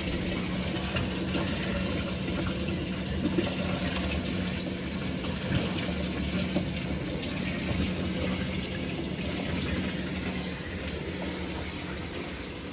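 Washing machine taking in water: a steady rush of water filling the machine, with a steady low hum that stops near the end and a few light knocks.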